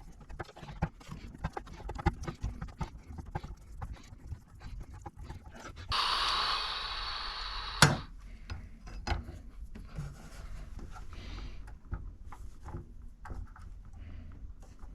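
Irregular clicks and knocks of hands handling plastic and metal parts inside an espresso machine during a pump swap. About six seconds in, a hiss lasts nearly two seconds and ends in one sharp loud click.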